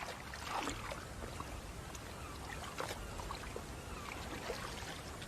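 Water splashing and trickling, with small irregular splashes throughout, as small fish are scooped out of a net.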